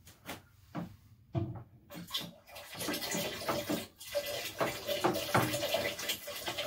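Bentonite slurry poured from a saucepan into apple juice in a plastic fermenting jar and stirred in with a long spoon: liquid splashing and sloshing, with a few knocks in the first second and a half.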